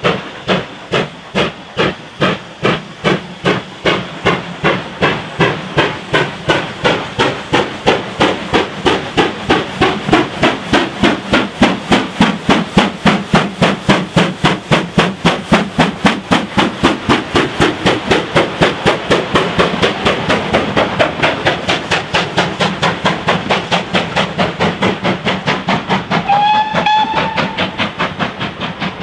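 GWR Hall class two-cylinder 4-6-0 steam locomotive passing close by under steam. Its chimney exhaust beats are loud and regular, quicken as it draws level, then ease as the coaches roll past. A brief high-pitched tone sounds near the end.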